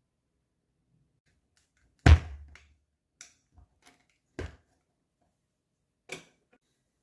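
A handful of sharp metallic knocks and clicks from the Martini action of a W.W. Greener police shotgun being worked during reloading. A loud clunk about two seconds in, then lighter clicks and another clunk.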